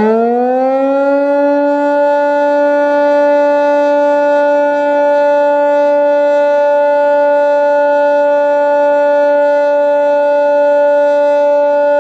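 Electric motor siren sounding the noon time signal: its pitch finishes climbing in the first second, then it holds one steady note.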